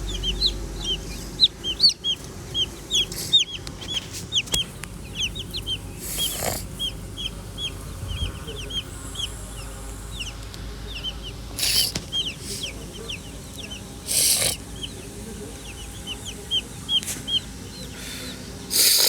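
Baby chicks peeping: many short, high chirps that fall in pitch, several a second, overlapping. A few brief rustling bursts break in, about a third of the way in, twice past the middle and near the end.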